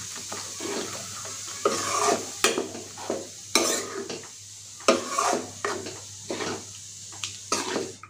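Spatula stirring and scraping a thick mash of taro leaves and lentils in a kadai, in repeated strokes, with a few sharp knocks against the pan around the middle.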